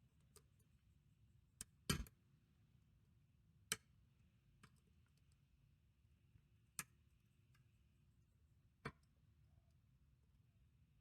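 Lock picks and a tension tool clicking and tapping in a French pump lock: about five sharp, irregularly spaced metallic clicks over near silence, the loudest about two seconds in, with a few fainter ticks between.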